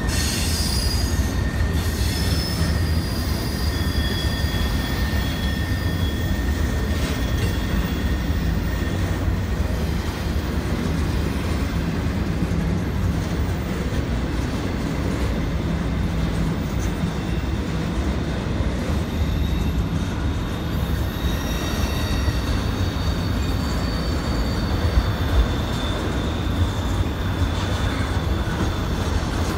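Double-stack intermodal train's well cars rolling past steadily, a low rumble of steel wheels on rail, with thin high wheel squeals coming and going as the cars take the curve.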